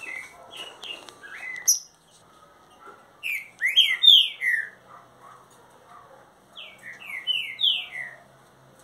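Caged green-winged saltator (trinca-ferro) singing loud whistled song: three short phrases of quick falling notes, about one every three seconds, the middle phrase the loudest.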